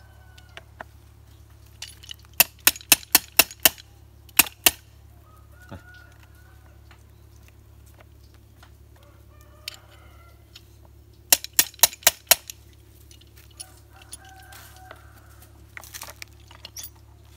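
Sharp metallic clicks in two quick runs, about four a second, as battery cable clamps and pliers are worked onto the battery terminals. Chickens cluck now and then over a faint steady low hum.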